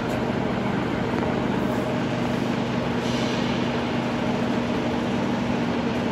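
Sachman bed milling machine running with its head travelling vertically under power: a steady mechanical drone with a constant low hum, growing a little brighter about three seconds in.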